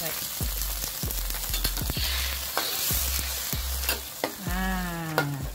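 Tomato and onion sauce sizzling in a wok just after water has been added, with a metal ladle stirring it and clicking and scraping against the wok.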